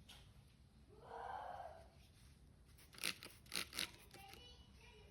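A knife blade scraping on a sharpener: one soft drawn stroke about a second in, then a quick run of about four short, sharp scrapes a little after three seconds.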